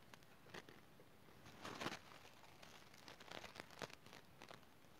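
Faint crinkling rustles of a piping bag being squeezed and handled, with a few soft short clicks, loudest about two seconds in and in a small cluster between three and four seconds.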